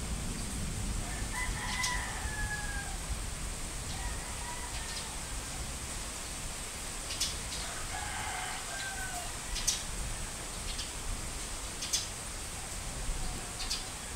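Roosters crowing, two clear crows about a second in and again about eight seconds in, with fainter crows between and near the end, over a steady hiss of rain and scattered short sharp ticks.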